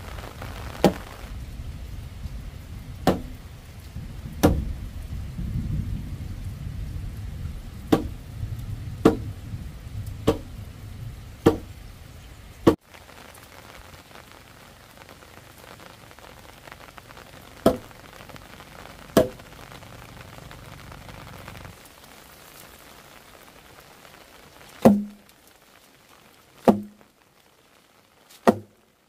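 Wooden mallet striking timber: single hard knocks one to several seconds apart, about a dozen in all, as a post and beam joint is driven together. A low steady background noise in the first half drops away about halfway through.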